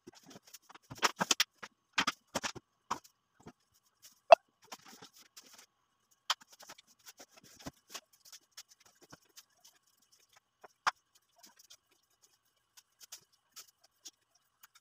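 Household items being handled, moved and set down: scattered clicks, knocks and rustling, busiest in the first three seconds, with one sharp knock about four seconds in.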